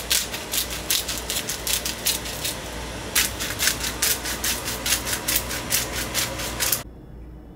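Hand-twisted spice grinder grinding seasoning onto a raw ribeye steak: a rapid, dry crackling in quick rhythmic twists, with a short pause about three seconds in, stopping abruptly near the end.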